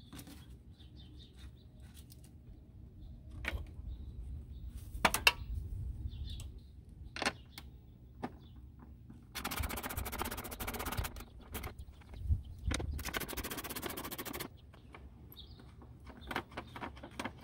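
Hand tools at work on the Jeep: scattered metallic clicks and knocks, then two spells of rapid, even clicking a few seconds each, a ratchet wrench turning a bolt loose.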